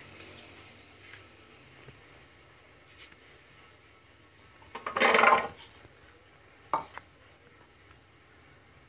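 Plastic blender jar being handled on a kitchen counter: one short clatter about five seconds in and a single sharp click near seven seconds. A faint, steady high-pitched whine runs underneath.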